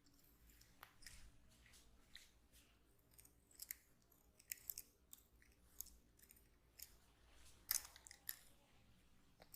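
Hands massaging the head, giving faint, irregular crisp crackles and clicks, the sharpest a little under eight seconds in.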